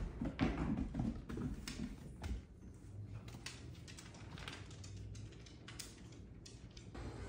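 Bengal cats' paws and claws thumping and tapping on a hardwood floor as they chase and pounce. There are soft thumps in the first couple of seconds, then scattered light taps.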